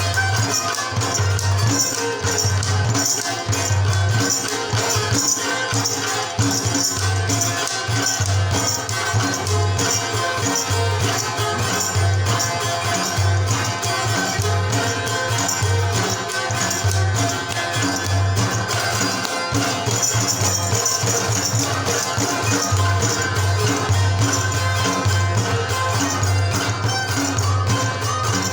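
Instrumental Khowar folk music on the Chitrali sitar, over a regular low beat and a bright jingling percussion.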